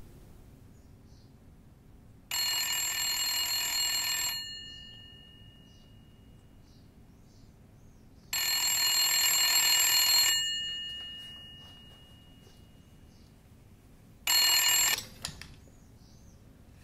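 Antique rotary telephone bell ringing: two full rings of about two seconds each, six seconds apart. A third ring breaks off after less than a second and is followed by a few clicks, as the call is answered.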